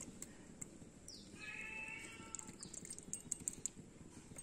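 A drawn-out animal call about a second in, lasting over a second and dropping in pitch at its start. Small clicks of a metal spoon against the steel pressure cooker run through it.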